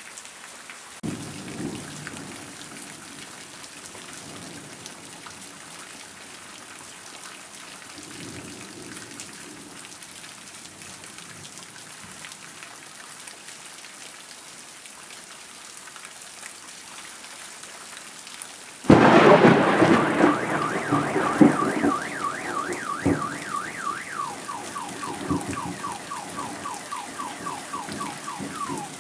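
Steady rain falling on grass and pavement, with two soft rumbles of distant thunder in the first half. About two-thirds of the way through, a loud thunderclap cracks and rolls on, and a car alarm starts up: a fast repeating rising-and-falling wail that switches to a different repeating chirp a few seconds later.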